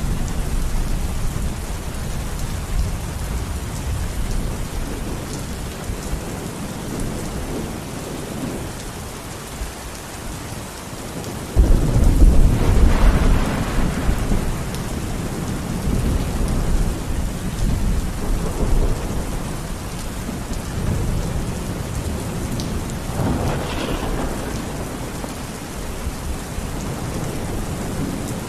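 Steady rain falling, with rolling thunder: a sudden loud clap about halfway through that rumbles on for several seconds, and fainter rumbles later.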